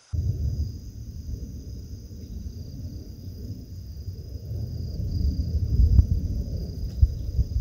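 Crickets trilling steadily in a night chorus, under a loud, irregular low rumble that starts suddenly and grows louder, with a few sharp knocks near the end.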